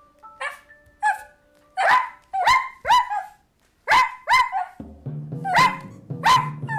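A string of about nine short, sharp dog barks in quick succession, each dropping in pitch. About two-thirds of the way through, a low, sustained chord of background music comes in under them.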